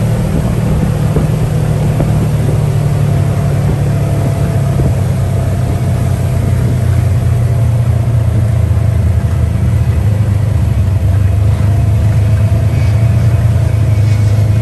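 Open off-road buggy's engine running steadily while driving, heard from on board, with an even rush of wind and tyre noise on a wet road.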